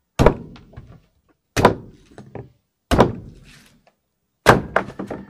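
Machete chopping into a green coconut on a wooden block: four heavy thunks about a second and a half apart, each followed by a few lighter knocks.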